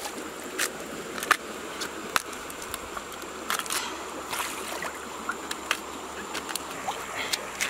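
Water splashing and dripping in irregular bursts as a peeled bamboo shoot is rinsed by hand in a shallow river, over a steady rush of flowing water.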